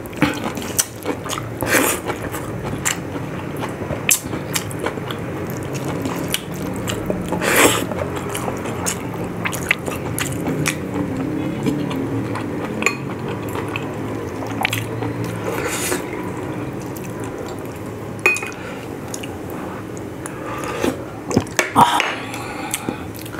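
A person eating rice and boiled pork with his fingers: chewing and wet mouth sounds, with scattered sharp clicks of a spoon against dishes and a bowl of broth.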